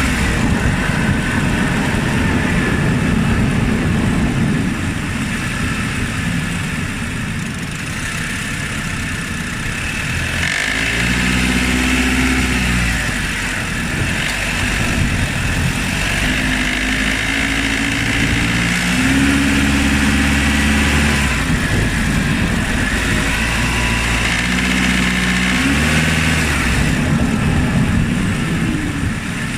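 Honda Odyssey RB2's K24 2.4-litre four-cylinder engine running while driving at about 1600–1800 rpm, with the engine knock that the owner hears at those revs.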